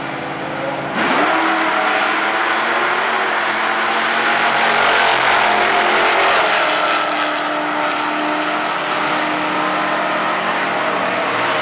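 Two 1960s Super Stock drag cars idling at the starting line, then launching about a second in at full throttle. Their big-block V8 engines rev hard as the cars run off down the strip.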